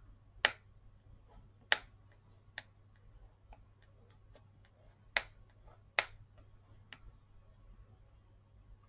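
A thick crayon tip tapping on paper as dots are dabbed on, giving sharp irregular taps: about five loud ones and several fainter ones in between.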